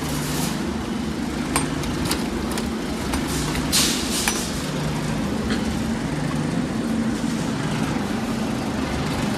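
Steady low background hum with a handful of sharp clicks and knocks, the loudest about four seconds in, as the metal crank and coin chute of a coin-operated bouncy-ball vending machine are worked and balls drop out.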